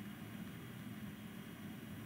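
Faint, steady low room hum with no distinct clicks or other events: background room tone.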